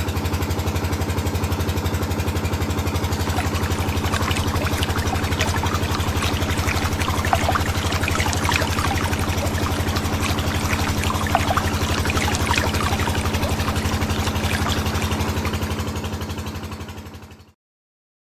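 Small electric motor of a homemade mini machine running at a steady speed, with a crackling rattle over its hum. It cuts off suddenly near the end.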